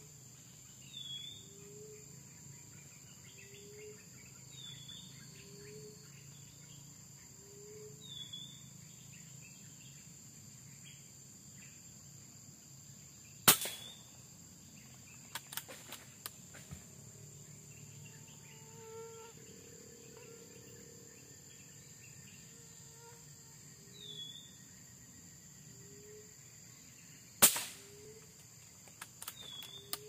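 Two sharp shots from a pre-charged pneumatic air rifle, about fourteen seconds apart, each followed by a few faint clicks. A steady high insect buzz and a bird calling over and over run underneath.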